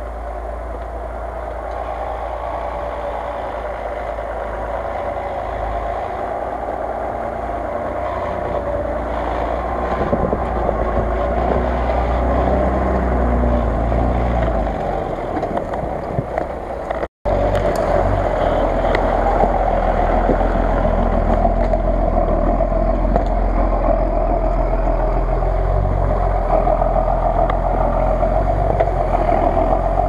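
Engine of the Jeep Cherokee 'Grizzly' off-road truck running steadily under load as it drives through snow and mud, growing louder over the first half. The sound drops out for an instant a little past halfway, then the engine carries on steady and louder.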